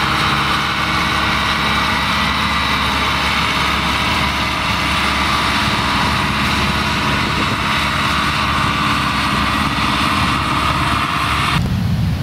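Small narrow-gauge peat railway diesel locomotive engine running steadily at low revs. Near the end the sound changes abruptly to a deeper rumble.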